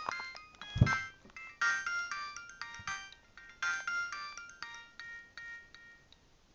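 A Nokia 7200 mobile phone playing one of its built-in ringtones: quick phrases of electronic notes, several sounding at once. A low thump comes about a second in, and the tune stops about six seconds in.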